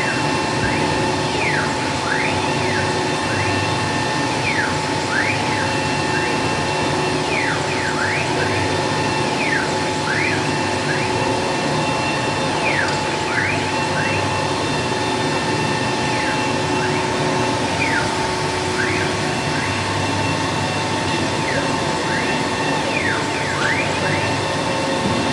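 4.5 kW CNC wood router running: a steady spindle whine, with the axis motors' whine dropping and climbing back every second or two as the gantry slows and speeds up.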